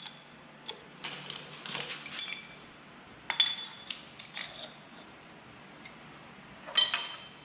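Several sharp metallic clinks, each with a brief ring, as the metal saddle extension of a floor jack and its Allen wrench knock together while being handled. The loudest clank comes near the end.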